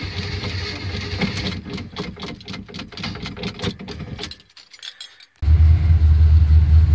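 Light clicking and rattling for a few seconds, a brief gap, then the 1979 Chevy C10's built 350 V8 running at a steady idle, just started cold after sitting for several weeks.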